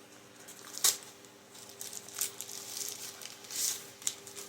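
Knife cutting open a shipping package, with scattered sharp clicks and short scraping, rustling sounds of tape and packaging; the sharpest click comes about a second in, and a longer scrape near the end.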